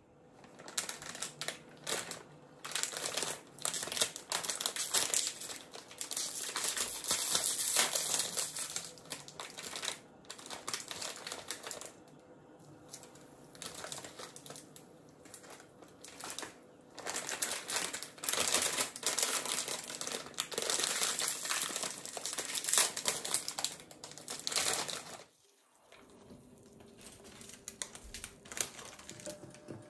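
Plastic instant-noodle packets crinkling in irregular bursts as they are handled and opened, with short pauses between. The crinkling stops suddenly a few seconds before the end, leaving a much quieter stretch.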